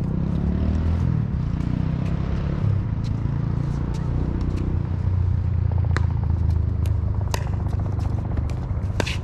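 Pickleball rally: sharp pocks of paddles striking the plastic ball, one right at the start and several in quick succession from about six seconds in, over a steady low rumble.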